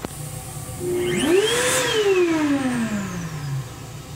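ThinAir electric hand dryer switching on with a click, its motor spinning up to a high whine within about half a second, then winding down in a falling whine over about two seconds as it shuts off. A steady low train rumble lies underneath.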